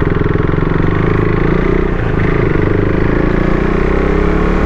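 KTM Duke 390's single-cylinder engine running under way as the bike is ridden, the firing pulses steady, then the revs climbing gently through the second half.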